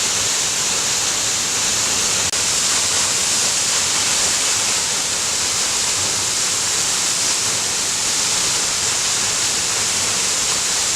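Large waterfall falling steadily: an even, unbroken rush of water.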